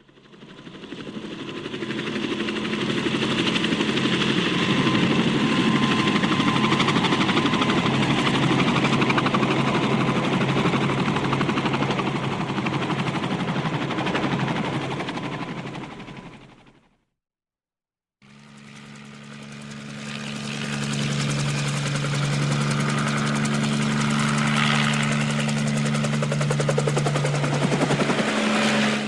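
Helicopter flying past with a rapid rotor chop over a steady engine drone. It swells in, holds loud, then fades out and cuts to silence about two-thirds of the way through. A second aircraft pass starts abruptly a second later and builds with a steady low engine tone.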